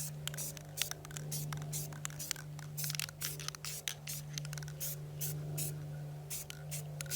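Aerosol spray-paint can hissing in many short, irregular bursts as light coats of orange paint go on, over a steady low hum.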